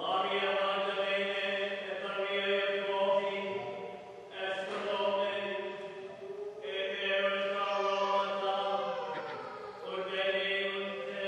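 Latin plainchant sung in the church, in phrases of a few seconds on long held notes with short breaks between them.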